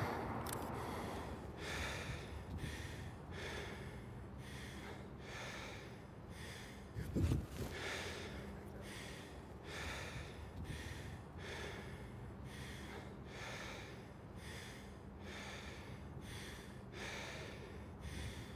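A man breathing hard and fast, out of breath from a chase on foot, about one and a half breaths a second. One dull thump about seven seconds in.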